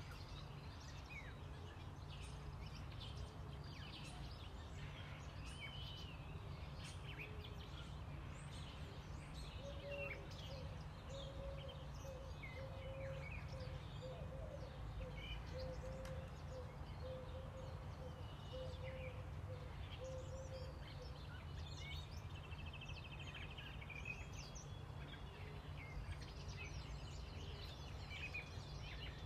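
Birds chirping and calling over a steady low rumble of background noise, with a repeated note held for about ten seconds partway through.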